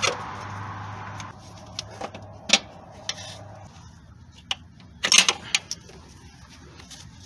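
Scattered sharp metal clicks and clinks of hand tools and parts being handled while hoses are disconnected in an engine bay, with a cluster of several clicks about five seconds in.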